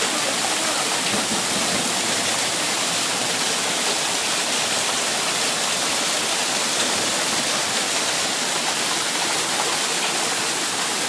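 Heavy hail and rain falling on the yard and house, a dense, steady hiss without a break.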